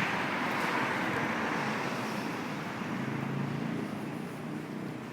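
A car driving past on the street, a rushing tyre and engine noise that is loudest at the start and fades away.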